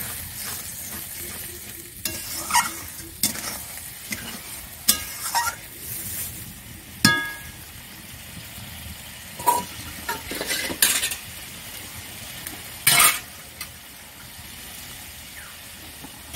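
Spice masala frying in oil in a metal kadai, sizzling steadily after a little water has been added, as the paste cooks down. A metal spatula scrapes and clinks against the pan at intervals, one clink ringing briefly about halfway through.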